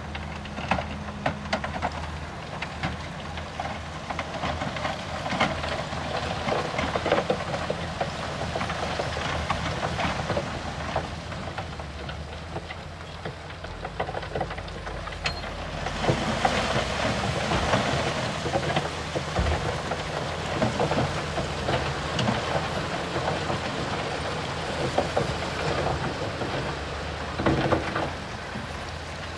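Heavy earthmoving at work: a diesel engine running low and steady under a dense crackle and clatter of stone being pushed and crushed. The crackle grows louder about halfway through, and there is a louder knock near the end.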